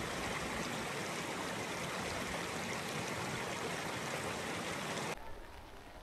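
Steady rushing water noise, even and unbroken. It cuts off suddenly about five seconds in, leaving a fainter hiss.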